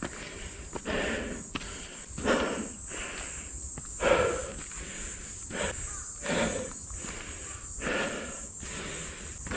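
Footsteps on a mountain trail, one crunching step about every 0.7 seconds at a steady walking pace.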